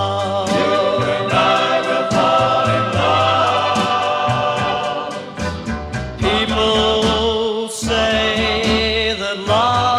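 Music: a soft pop song recording with band backing, steady bass and drums, and choir-like backing vocals, without clear lead lyrics in this stretch.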